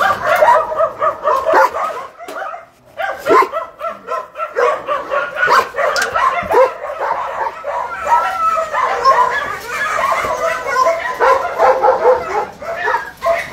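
Many shelter dogs barking and yipping together in an unbroken chorus, with a short lull about two and a half seconds in.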